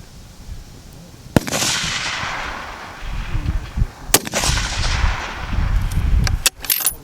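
Fullbore target rifle shots on an open range: one shot about a second and a half in with a long rolling echo, and another about four seconds in, also echoing away.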